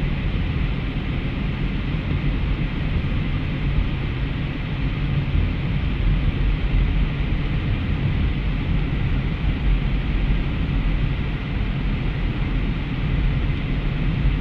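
Steady low rumble and hiss inside a moving car: road and engine noise, with no distinct events.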